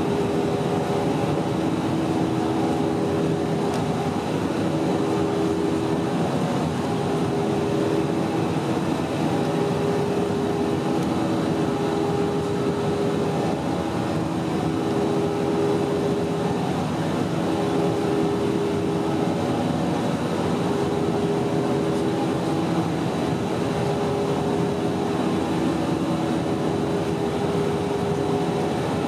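Airbus A320-232 cabin noise from a seat beside the wing: the IAE V2500 turbofans running steadily at climb power. The rush is even throughout, with a low hum that swells and fades every couple of seconds.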